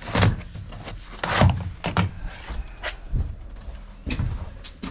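Handling noise aboard an aluminium boat: a string of irregular knocks and clatter with rustling as a clipboard and bag are picked up off the diamond-plate deck. The loudest knocks come in the first two seconds.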